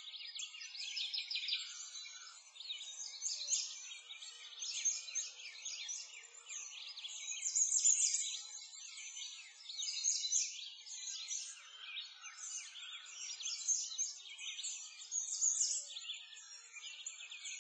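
A dense chorus of birds chirping and singing, many short high calls overlapping without a break.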